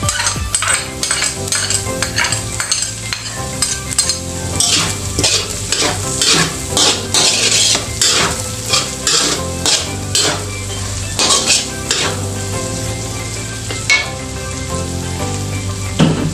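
Metal spatula scraping and stirring ground pork and diced red bell pepper around a wok, the meat sizzling as it fries. Repeated scraping strokes come thick and fast for most of the time, then thin out, with one sharp scrape near the end.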